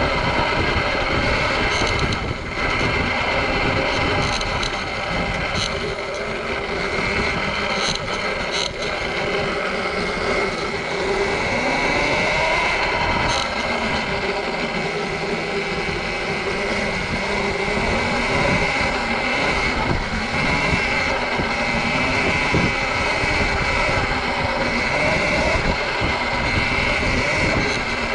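Sur-Ron electric dirt bike on the move: the electric motor's whine rises and falls in pitch with speed, over a steady rush of wind on the microphone.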